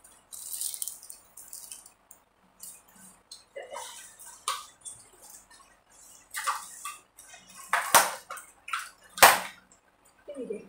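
Kitchen sounds: short irregular splashes of water and clinks of dishes, with two sharper knocks near the end.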